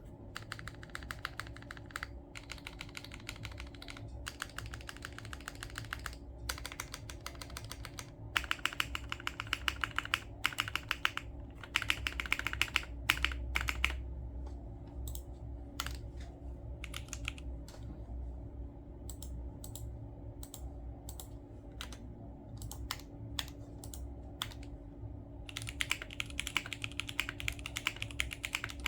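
Typing on a Geonworks F1-8X mechanical keyboard with stock Gateron X switches and CRP R4 keycaps: fast runs of keystrokes, then slower single key presses through the middle, then fast typing again near the end. The stock Gateron X springs have some high spring ping.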